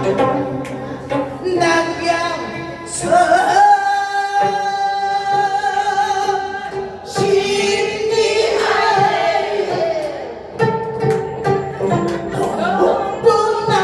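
A woman singing a Korean folk-style song with wide vibrato and long held notes, accompanied by plucked gayageum strings.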